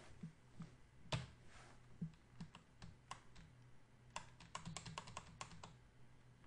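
Faint computer keyboard typing: scattered keystrokes, a louder one about a second in, and a quick run of keys about four seconds in.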